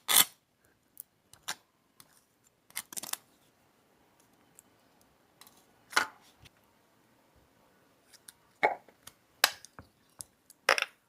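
Irregular sharp clicks and light knocks of small objects being handled, several seconds apart: a loud one at the start, one about halfway through, and a quick cluster near the end.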